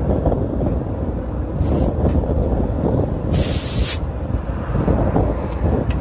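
Steady low rumble with a short, sharp hiss of escaping gas about three and a half seconds in, and a fainter hiss shortly before it.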